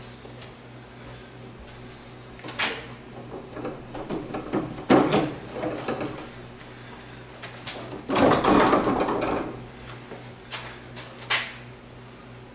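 Interior sliding barn doors rolling along their overhead steel track on 5-inch wheels, with two longer rumbling runs about five and eight seconds in and several sharp knocks and clunks in between.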